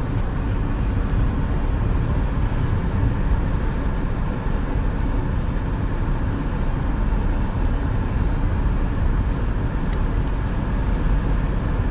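Steady rain outdoors, an even rushing noise with a heavy low rumble.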